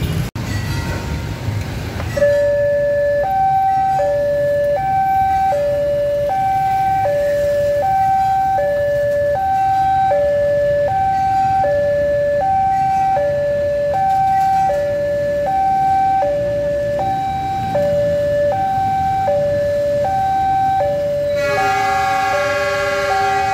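Railway level-crossing electronic warning siren, two tones alternating low-high, each held for about half a second, from about two seconds in, sounding while the barrier is down for an approaching train. A low rumble fills the first two seconds. Near the end a louder, richer tone with many overtones joins the alarm.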